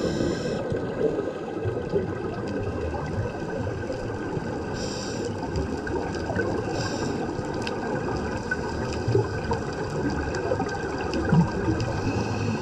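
Scuba divers' regulator bubbles heard underwater: a steady gurgling rumble of rising exhaust bubbles, with short high hisses at the start and again about five and seven seconds in.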